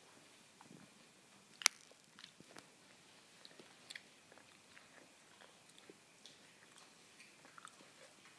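A single short, sharp hiccup about a second and a half in, with faint small clicks scattered around it.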